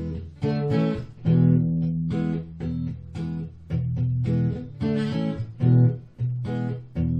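Guitar strumming a steady chord pattern, the instrumental introduction to a song before the singing begins.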